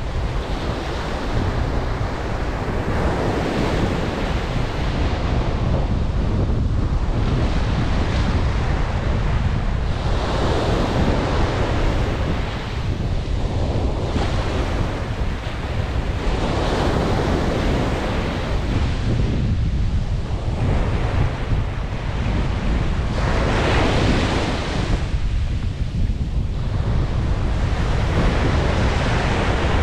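Rough surf breaking and washing up on the shore, surging every few seconds, with strong wind buffeting the microphone as a constant low rumble.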